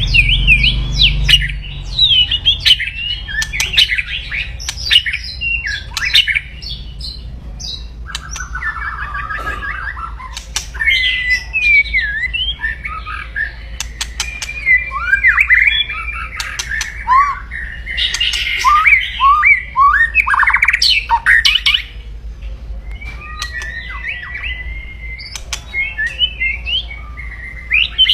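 White-rumped shama (murai batu) singing aggressively in its harsh 'kretekan' style: fast whistled sweeps broken by rapid rattling runs of notes and sharp clicking calls, loud and continuous.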